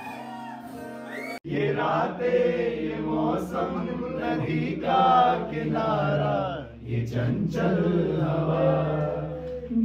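A man singing a song into a microphone, his voice amplified in the room. The sound cuts abruptly about a second and a half in, and the singing picks up louder after it.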